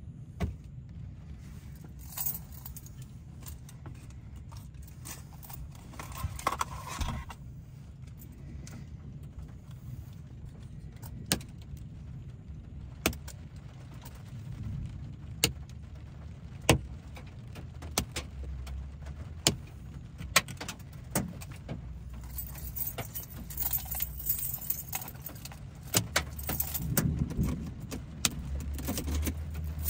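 Hailstones striking the car's body and windshield in sharp, irregular clicks that come thicker toward the end, over a low steady rumble.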